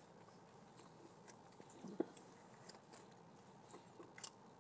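Faint close-up chewing of a fast-food breakfast, with small scattered mouth clicks and one slightly louder mouth sound about two seconds in.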